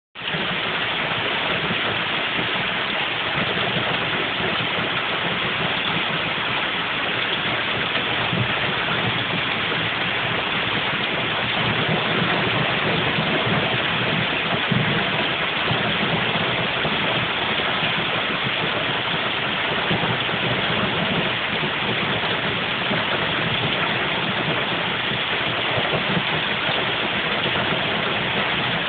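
Heavy rain pouring steadily onto trees, lawn and a brick patio: an even, unbroken hiss with no let-up.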